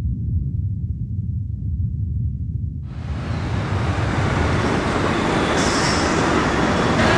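A low rumble, joined about three seconds in by a rushing noise that swells across the range and stays loud.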